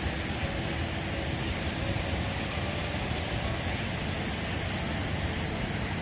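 Steady rushing noise of river water flowing over rock cascades, with a low, uneven rumble of wind on the microphone.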